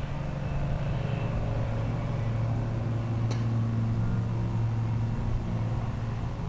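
Ford Capri 3000 race car's V6 engine heard from inside the cabin, running at low revs as the car rolls slowly along the track. The revs drop about a second in and pick up again near the end. There is a single sharp click a little over three seconds in.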